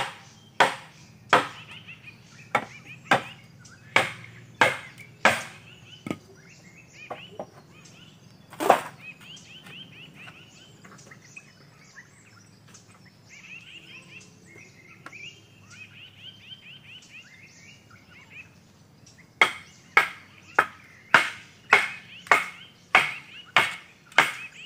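Machete blows chopping bamboo: sharp, even knocks about every 0.6 seconds for the first six seconds, then a single blow near nine seconds. Birds chirp through the lull, and the rapid chopping starts again for the last five seconds.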